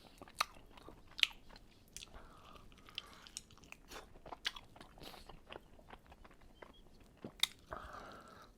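A person chewing and biting food close to the microphone: a run of faint, wet mouth clicks and smacks, with a few sharper ones.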